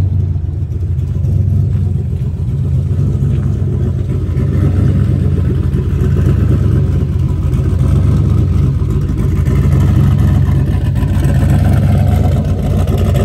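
Pushrod V8 engine of a drag car running at idle through a side-exit exhaust, a steady deep rumble that grows a little louder and fuller about four seconds in.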